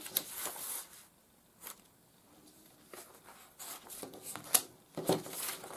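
Paper rustling and sliding as large printed cross stitch pattern sheets are handled and turned over on a tabletop, with a few sharp crackles. A brief rustle at the start, a quieter stretch, then busier handling in the second half.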